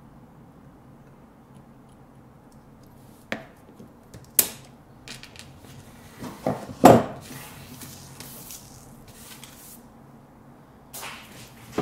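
Wire stripper's cutting blade snipping off the excess copper wire ends above freshly crimped ring sleeves, two sharp snips about a second apart. These are followed by a louder knock and rattle of handling, then light rustling.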